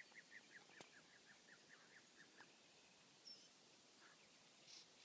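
Faint bird song: a run of short, clear notes, about four or five a second, stepping down in pitch and ending about two and a half seconds in, followed by a few scattered chirps.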